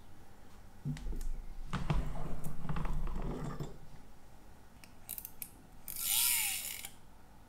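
Small metal watch-case vise being worked by hand: the screw and jaws grate and ratchet for a couple of seconds, followed by a few sharp clicks and a short hiss near the end.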